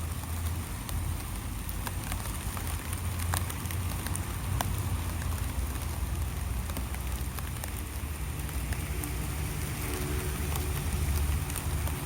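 Light rain falling steadily, with scattered individual drops ticking. A low steady rumble runs underneath and grows a little stronger in the second half.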